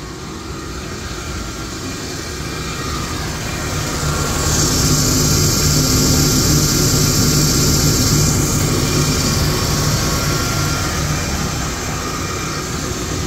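Hollymatic 180-A mixer grinder running steadily in mix-grind mode, its 10 hp electric motor driving both the mixing paddles and the grinding auger with the clutch engaged. A steady machine hum with a hiss that grows louder about four seconds in and eases off around nine seconds in.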